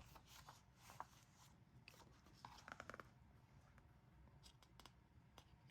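Near silence with faint handling sounds of a music album's paper and card contents: a soft click about a second in, a quick run of small clicks near the middle and a few faint ticks later.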